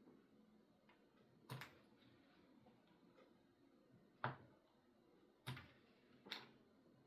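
A nail clipper snipping excess fiber-optic star strands from a starlight headliner: four sharp, short clicks at uneven intervals.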